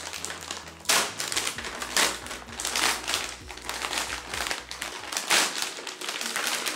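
Black plastic mailer bag crinkling and rustling in irregular bursts as it is handled and opened.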